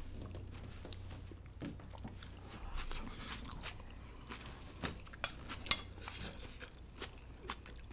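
Close-up eating sounds: quiet chewing of pulled-dough soup and kimchi, with scattered light clicks of utensils against the dishes.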